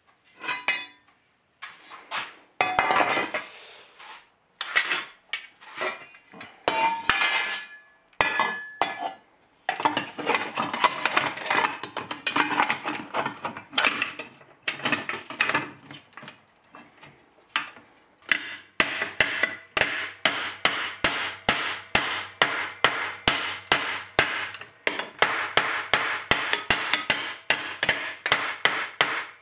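Small hammer striking steel armour plate: scattered knocks and clanks at first, then from about two-thirds of the way through a quick, even run of light strikes, about three or four a second.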